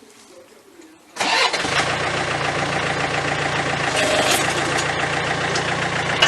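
Tractor engine starting about a second in, then running steadily at idle.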